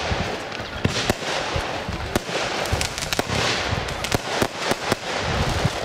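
Weco Voodoo Star compound firework cake firing its shots: a quick, irregular series of sharp bangs and low launch thumps over a steady crackling hiss from the bursting stars.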